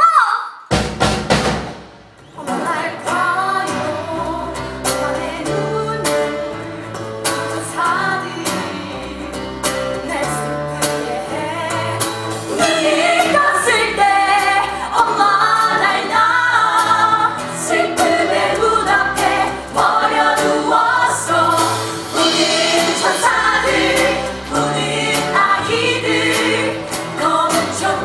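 Live musical-theatre song: a group of young women singing together over a small live band with bass, cello, guitar and drum kit. A sharp hit near the start, a brief dip, then the song builds and grows fuller from about halfway.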